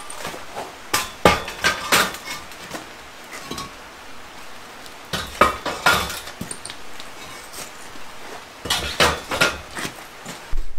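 Hollow concrete blocks being stacked onto a hand truck: sharp knocks and scrapes of block against block and against the dolly, in three clusters, about a second in, around five to six seconds, and near nine seconds.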